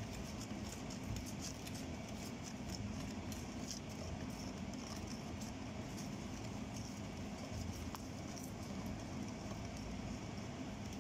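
Wire whisk stirring thick cake batter in a mixing bowl, with light, irregular clicking over a steady low hum.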